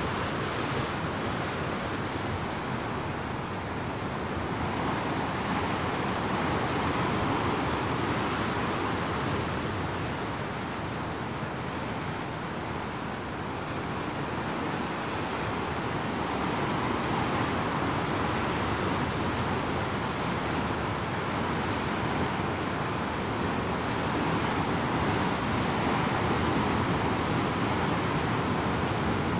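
Rough Sea of Japan surf breaking over and around rocks on a rocky shore: a continuous churning wash of whitewater that slowly swells and eases as the sets come in.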